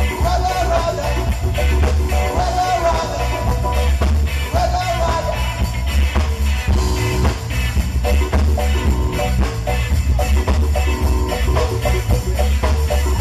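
Live band playing loud amplified music with a heavy bass line and drum kit. A lead melody comes in short phrases during the first five seconds or so, then the band plays on without it.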